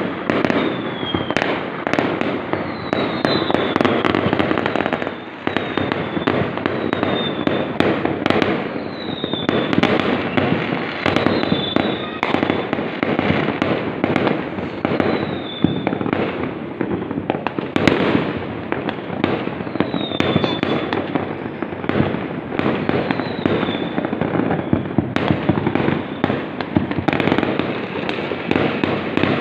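Fireworks going off in a dense, unbroken barrage of bangs and crackling, with short high whistles falling in pitch every few seconds.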